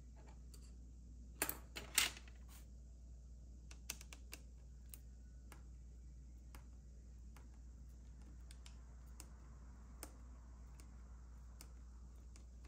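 Light clicks and clacks of small hand tools, a few louder ones about one and a half to two seconds in as a screwdriver is taken up, then scattered faint ticks as a T5 Torx screwdriver works a screw out of the thermostat's circuit board.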